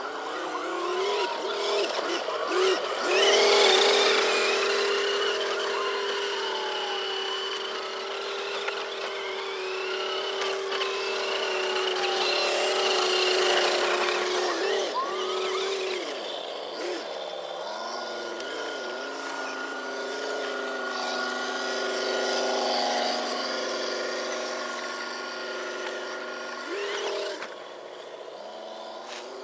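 An electronic RC sound system on a 1/18-scale KongHead 6x6 truck plays a simulated engine sound. Whines glide up and down in pitch as the truck drives about. The sound is loudest a few seconds in and drops off near the end.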